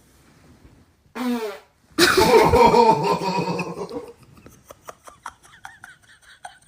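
A brief pitched sound about a second in, then a loud, noisy fart about two seconds in that trails off over the next two seconds, followed by faint scattered clicks.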